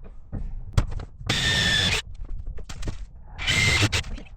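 Power drill running in two short bursts about two seconds apart, drilling into a wooden shelf board, with a few knocks from handling the wood and tool.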